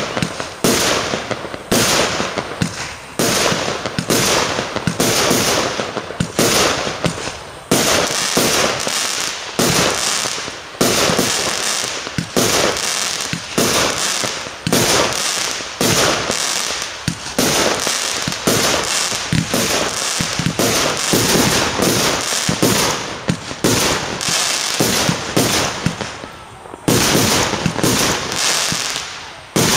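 Aerial fireworks bursting overhead in a rapid, near-continuous series of bangs. There is a short lull near the end, then a loud bang.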